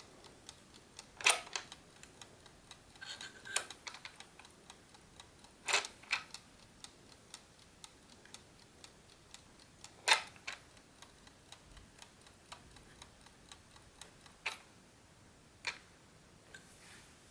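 GARDE classic mechanical wooden chess clock ticking steadily, about three ticks a second, its movement running properly after a spring adjustment. A few louder clicks or knocks come at irregular moments, the loudest just over a second in and about ten seconds in.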